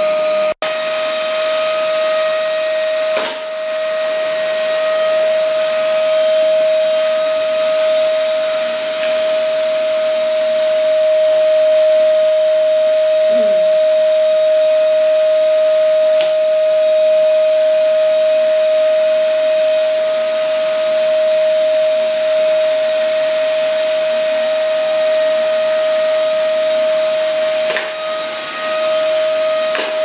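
Canister vacuum cleaner running: a constant high motor whine over a steady rush of air.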